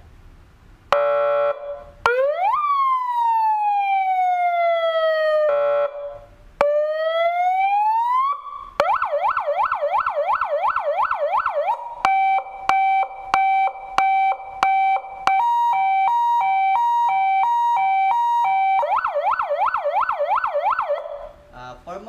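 200-watt electronic car siren sounding through its slim horn speaker as it is switched through its tones. It gives a short horn blast, then a slow wail falling and rising again, broken by a second horn blast. It then runs a fast yelp, hi-lo two-tone patterns at two speeds, and the yelp again before stopping.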